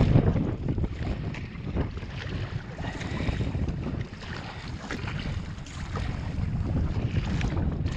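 Wind buffeting the microphone with a heavy, uneven rumble, over water splashing and slapping against a sea kayak as it is paddled through choppy waves, with scattered short splashes.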